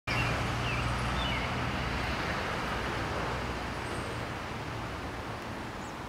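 Steady rumble of distant road traffic, with a low hum, heard as backyard background. A few short, high bird chirps come in the first second or two.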